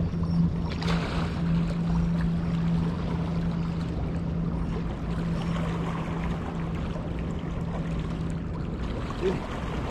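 Steady rush of a river flowing over rocky shallows, with a steady low hum underneath.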